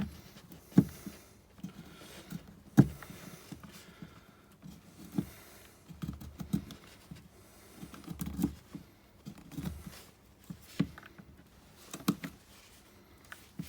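Handling sounds of a knife and a piece of wood: a few sharp knocks and taps at irregular intervals, with short scraping rubs between them, the loudest knocks about one and three seconds in.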